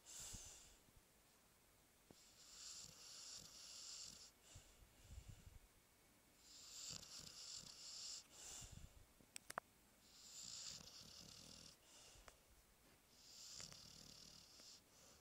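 Chow Chow snoring softly in deep sleep: a slow, hissing breath through the nose about every four seconds, with a low rumble between some of the breaths. Two sharp clicks about nine and a half seconds in.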